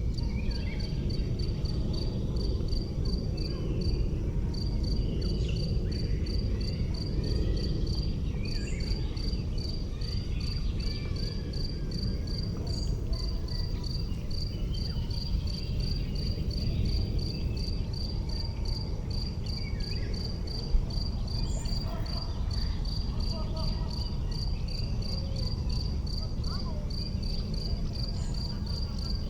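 An insect chirping in a steady, even rhythm of short high chirps, two to three a second, over a steady low outdoor rumble, with faint short calls now and then and one brief knock about two-thirds of the way through.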